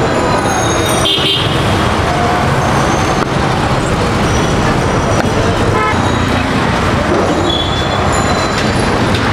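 Busy street traffic: a steady wash of road noise with short horn toots.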